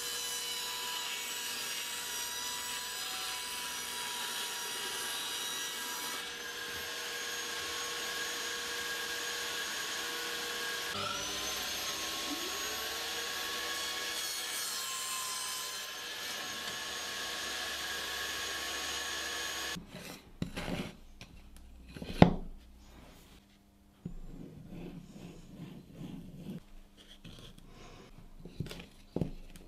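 Bench-top table saw running and cutting birch plywood: a steady blade whine with the hiss of the cut. About 11 s in, the pitch dips and rises again as the blade spins back up. Near 20 s the saw stops and wood pieces are handled and set down on the bench, with a sharp knock about 22 s in.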